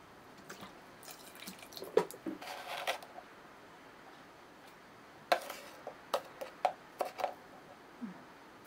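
Sake poured from a spoon into a pot of rice and water, a short trickle and drip with a clink, followed by a series of about six sharp taps and clinks of a small metal spoon as salt is scooped and tapped onto the rice.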